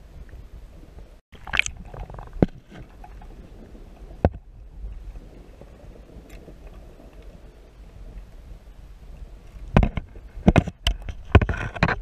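Cold lake water surging in and out around a GoPro held underwater: a low, muffled rumble broken by sharp knocks, several of them clustered near the end.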